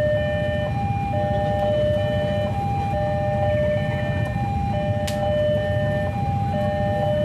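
Railway level-crossing warning alarm sounding its repeating two-tone electronic signal, a lower and a higher tone alternating about every second, which warns that a train is approaching. A steady low rumble of road traffic runs beneath it.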